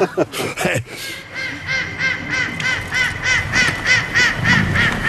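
A duck quacking in a rapid, even series of short calls, about three or four a second, starting about a second in.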